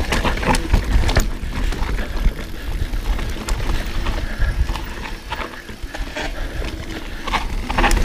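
Mountain bike rolling down a rough dirt trail: tyre noise and a low rumble, with frequent irregular clicks and rattles from the bike over roots and rocks.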